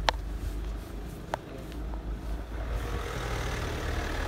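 A car moving slowly past close by, its engine running, with a rush of road and tyre noise building in the second half. There is a sharp click at the start and another about a second later.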